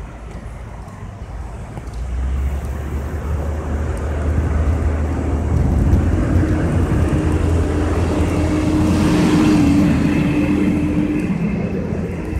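A motor vehicle's engine running close by: a low rumble that sets in about two seconds in and grows louder, with a steady hum over it through the middle.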